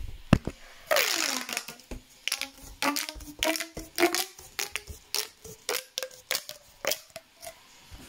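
Plastic pop tube fidget toy being stretched and squeezed, its ribbed sections snapping open and shut in a run of sharp clicks and pops, about three a second, with a longer crackling rush about a second in.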